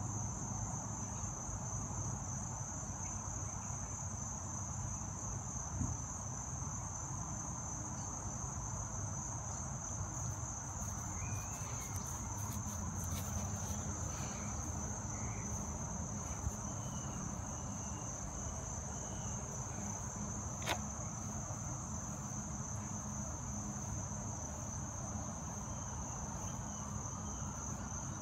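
Steady high-pitched chorus of insects singing in the grass and trees, one continuous unbroken trill, over a low steady rumble. A few short clicks sound around the middle and one sharp click a little later.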